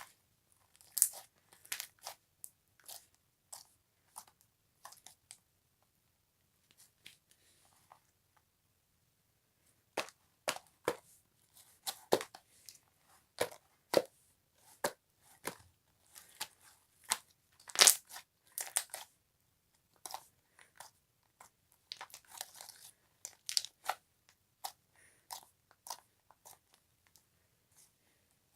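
Irregular crisp crunches and crackles, sparse at first, then after a pause of about two seconds denser and louder.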